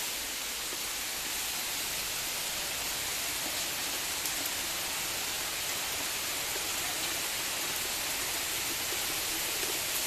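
Steady rain falling on a pond and the leaves of surrounding trees: an even hiss.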